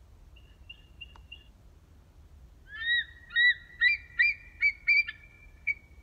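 Bald eagle call: a loud series of about seven short, high, piping notes in quick succession, starting about three seconds in, after a few faint chirps.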